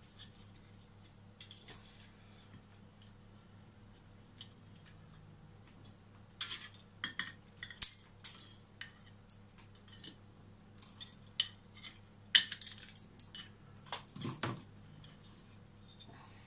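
Sharp clinks and short gritty scrapes of a small tool working granular potting substrate in a glazed ceramic bonsai pot. A few faint clicks at first, then a busy run of clinks and scrapes from about six seconds in until about fifteen seconds.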